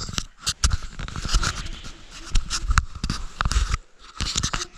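Handling noise from a camera being picked up and repositioned: irregular rubbing and scraping against the microphone, broken by many sharp knocks and several heavy thumps.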